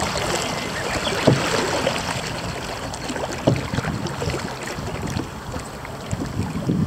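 Canoe paddling: paddles dipping and pulling through river water, with water washing steadily around the canoe. Two sharp knocks stand out, about a second in and again halfway through.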